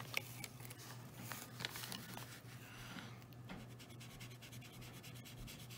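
Felt tip of an alcohol marker scratching over paper in short, quick strokes as colour is laid down, faint and densest in the second half. A couple of light clicks come right at the start.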